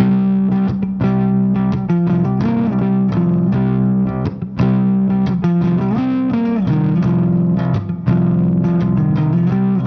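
Intro music led by electric guitar with distortion and bass.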